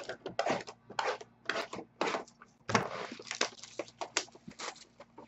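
Trading-card packaging being handled and opened: a string of irregular short rustles, crinkles and scrapes, with a longer rasp about three seconds in.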